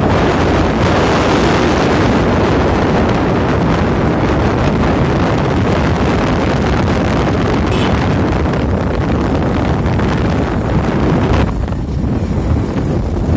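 Wind buffeting the microphone on a moving motorcycle, a loud steady rush with the bike's engine and road noise underneath. The high hiss eases near the end.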